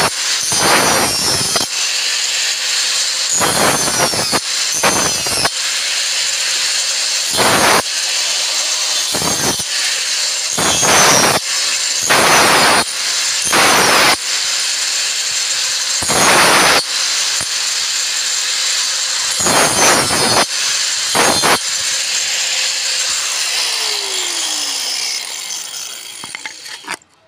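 Angle grinder running at speed and cutting into plywood, the whine broken by about a dozen louder bursts as the disc bites into the wood. Near the end it is switched off and spins down, falling in pitch until it stops.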